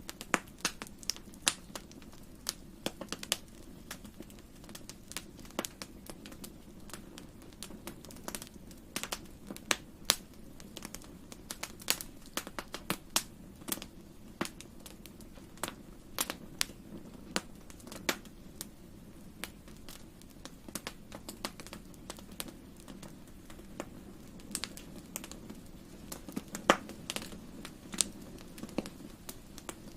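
Wood fire in a fireplace crackling: irregular sharp pops and snaps, sometimes several a second, over a low steady background noise.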